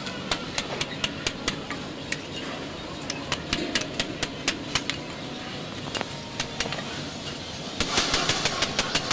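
Sharp metallic clicks and taps, irregular at about three or four a second, over a steady workshop hum; near the end they turn louder and denser, into a crackle.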